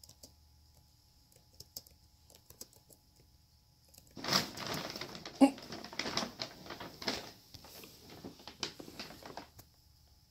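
A brown paper bag crinkling and rustling as a cat scrambles inside it. The rustle starts about four seconds in and lasts about five seconds, full of sharp crackles, the loudest a little after it begins.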